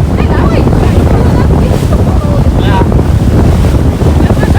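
Strong wind buffeting the microphone on a moving boat, over the rush of water, with faint voices here and there.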